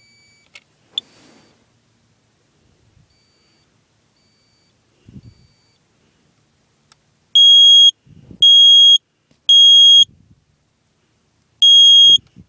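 Old Firex smoke alarm being tested. After a click, it gives a few faint chirps, then the full alarm sounds: loud, steady, high-pitched beeps in a group of three, a pause, and the next group beginning near the end. It was slow to go off and chirped first, which the owner puts down to its age and to being tested without AC power.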